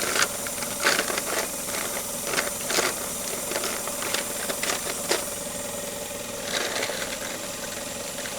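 Skoda car engine idling steadily, with sharp clicks and rattles of oscilloscope probes and leads being handled, frequent in the first five seconds and sparse after.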